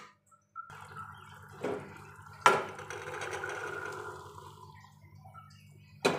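Boiled green peas and their liquid tipped from a steel pot into a kadai of thick tomato-onion gravy: a wet pouring and slopping lasting a few seconds, with a sharp clank about two and a half seconds in. A low steady hum runs underneath from just under a second in.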